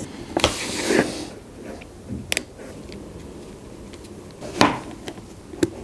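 Handling noise from a Beats Studio3 headphone headband being fitted at its hinge: a short rustle in the first second, then a few separate sharp clicks.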